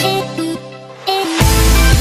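Background electronic music: the sustained notes thin out and drop away about half a second in, then a heavy bass and drum beat comes in sharply.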